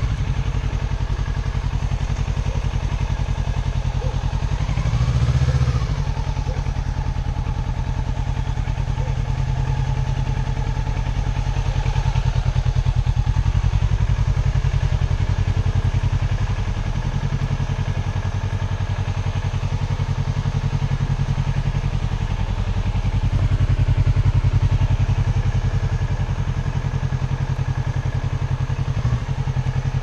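Kawasaki sport motorcycle's engine idling steadily, with a brief rise and fall in revs about five seconds in.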